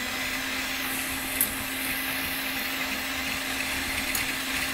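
Electric hand mixer running steadily, its beaters whipping egg yolks with a little warm water until creamy in a glass bowl. A steady motor hum, with a couple of brief clicks.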